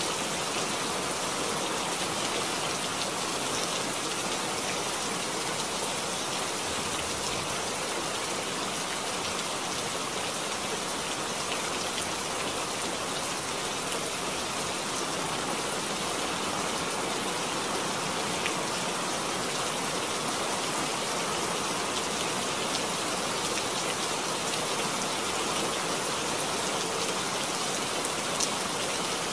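Steady rain falling, an even hiss with a few faint drop ticks scattered through it.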